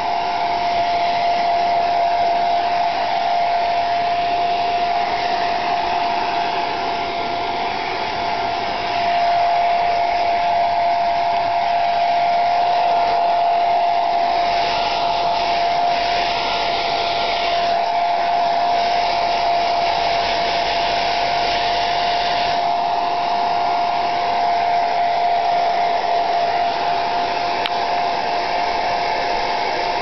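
Hair dryer running steadily on its coolest setting: a constant rush of air with a steady motor whine. The rushing air turns hissier for several seconds midway.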